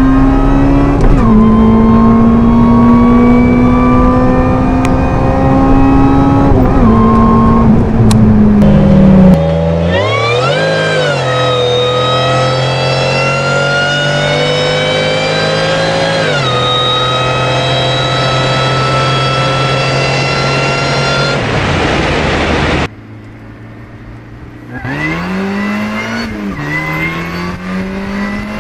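Supercharged car engines accelerating hard through the gears, a whine rising steadily with engine speed and dropping at each upshift. The sound changes abruptly twice as it moves from one car to another, and the last car is quieter, revving up and down.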